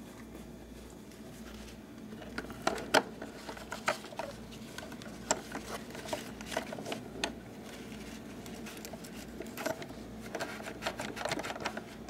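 Hand-cleaning around the refrigerator water dispenser's rubber flap door and nozzle: irregular scratchy rubbing and scraping with sharp little clicks and taps against the plastic, over a low steady hum.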